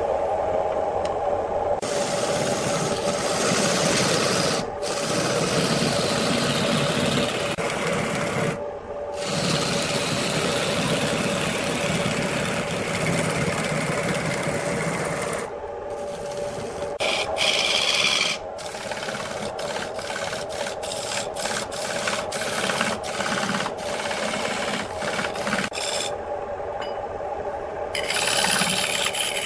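A spinning wooden blank on a wood lathe being sanded by hand: a steady rasping hiss over the lathe motor's constant hum. The hiss drops out briefly a few times as the paper is lifted, and rapid light ticks run through the second half.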